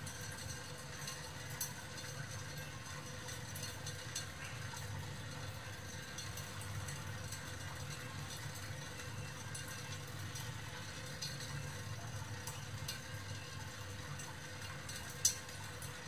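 A thin stream of water from a kitchen tap trickling steadily into a stainless steel sink, over a faint steady hum. A few faint ticks come through, with a sharper click near the end.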